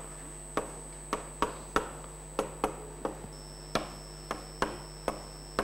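Chalk knocking against a blackboard while writing: about a dozen sharp, irregularly spaced taps.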